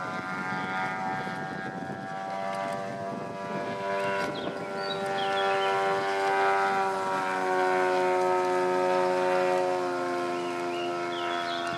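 The 156 cc engine of a large-scale RC model Bellanca running in flight overhead: a steady drone, its pitch easing down a little partway through as the plane passes.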